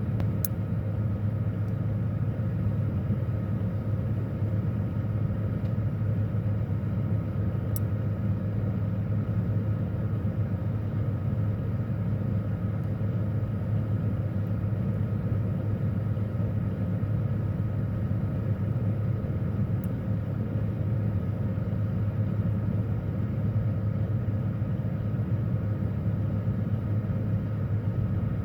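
Refrigerator running, heard from inside the closed fridge: a steady low hum with a few fainter steady tones above it and three faint ticks.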